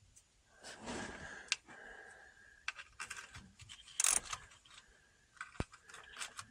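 Hand tools and small metal parts being handled: scattered clicks and metallic clinks with some rustling, one bright clink about four seconds in.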